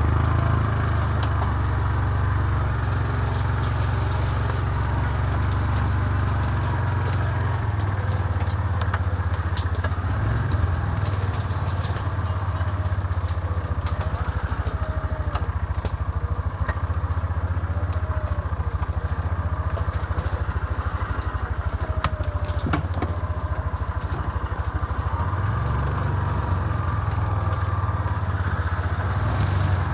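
Yamaha Rhino side-by-side UTV engine running steadily at low speed while driving down a rough woodland trail, with small changes in engine speed about ten seconds in and near the end.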